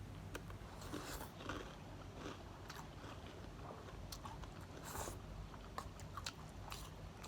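A person eating spicy snacks: faint bites and chewing, with scattered short crunches.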